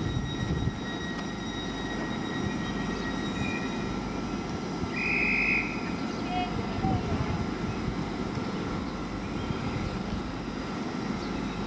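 Hull Trains Class 802 bi-mode train standing at the platform, its equipment giving a steady low hum with a thin high whine. A short shrill tone sounds once, about five seconds in.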